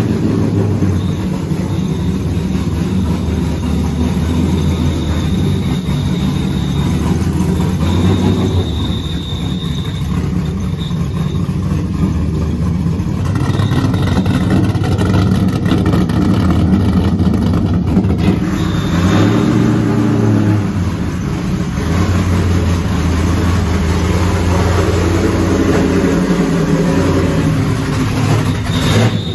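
Chevrolet Craftsman Truck Series race truck's V8 running loudly, its revs rising and falling as it is driven.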